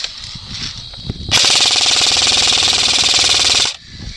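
Airsoft gun firing one sustained full-auto burst of about two and a half seconds. The burst starts about a second in and cuts off near the end.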